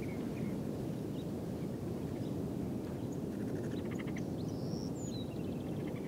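Outdoor ambience: a steady low rush, with small birds chirping and whistling over it and two short rapid trills, one about halfway through and one near the end.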